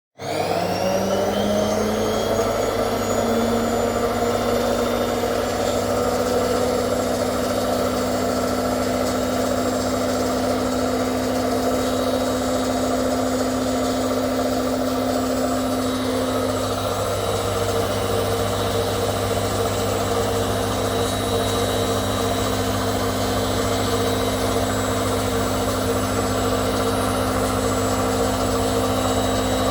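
Hotpoint 18680 Super Electronic De-Luxe washing machine on spin: the motor whine rises in pitch over the first couple of seconds, then runs steady, stepping up slightly about halfway through. The motor has new brushes fitted and runs smoothly.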